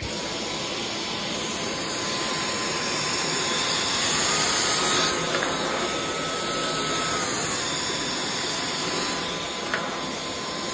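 Vacuum cleaner running: a steady rush of air with a motor whine that rises slightly in pitch about four seconds in, falls back a few seconds later and rises again near the end. A couple of short ticks sound over it.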